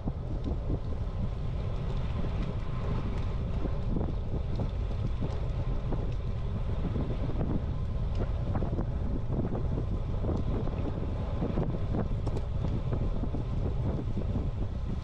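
Steady wind rumble buffeting the microphone of a camera riding on a moving bicycle, with tyre and road noise from the paved path underneath.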